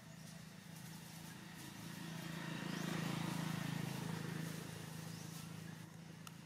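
A motor vehicle passing by: a low engine hum that grows louder to a peak about halfway through and then fades.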